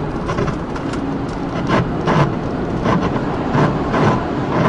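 Steady road and wind noise inside a police patrol car driving at well over 100 mph.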